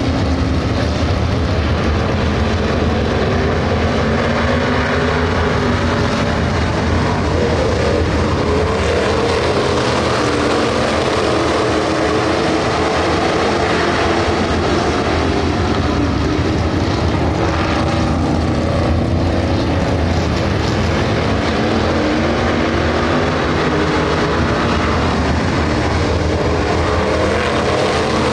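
A pack of dirt-track race cars running at speed around the oval, a loud continuous engine drone whose pitch rises and falls as the cars go through the turns and down the straight.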